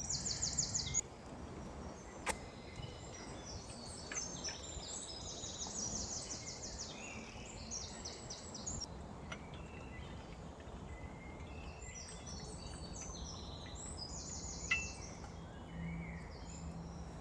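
Woodland birds singing: several high, rapid trilling phrases repeating every few seconds, with a single sharp click about two seconds in.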